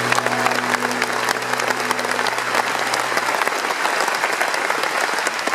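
Audience applauding, a dense, steady clatter of many hands. A low sustained note from the band rings under it and dies away about three seconds in.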